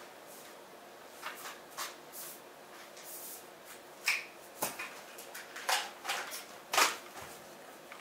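Scattered light clicks, knocks and rustles of plastic vacuum attachments being handled, with a handful of sharper knocks in the second half.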